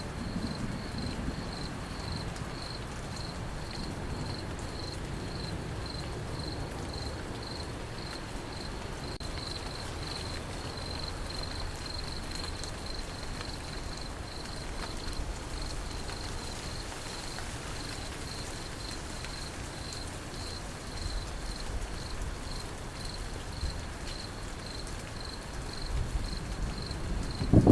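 Crickets chirping in a steady, even rhythm over a constant hiss of rain. A low rumble of thunder swells near the end.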